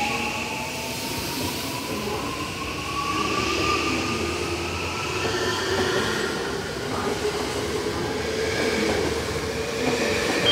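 An electric commuter train pulling out of the platform and picking up speed. Its motor whine rises in pitch over the first few seconds over the rumble of the passing cars.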